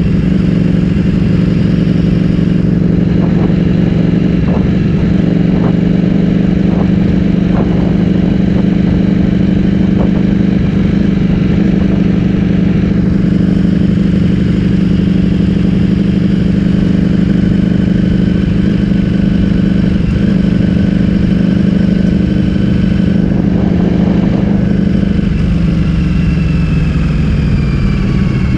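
Ducati Streetfighter V4S's V4 engine through an Akrapovic full-system exhaust, running at steady revs. A series of short knocks comes in the first ten seconds, and the revs fall away near the end.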